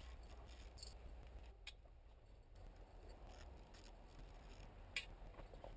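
Near silence with faint handling and small-tool noises, and one light click about five seconds in.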